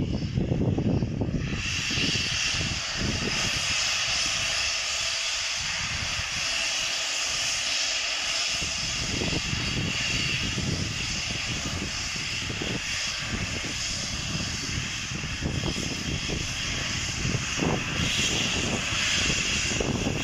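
Steam locomotive 'Flying Scotsman', an LNER A3 three-cylinder Pacific, working a train slowly with its cylinder drain cocks open. A steady steam hiss starts about a second and a half in, over an uneven low rumble of the engine working.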